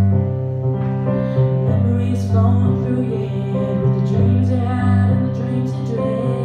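Stage keyboard played in a piano voice, holding sustained chords with a low bass line, while a woman sings over it in a slow, tender ballad.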